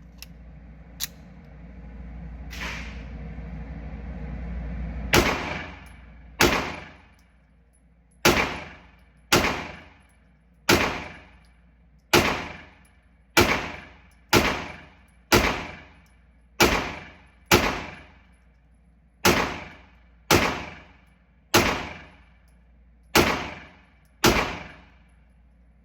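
Pistol fired in slow, steady single shots, about sixteen of them roughly a second apart, each with a short echoing tail. A couple of faint clicks of handling come before the first shot.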